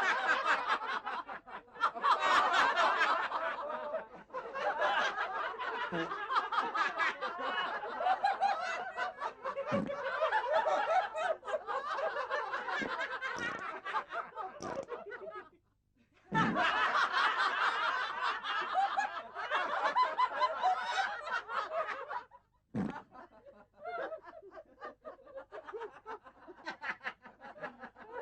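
Laughter in long stretches, cut off abruptly by brief gaps about 4, 16 and 23 seconds in.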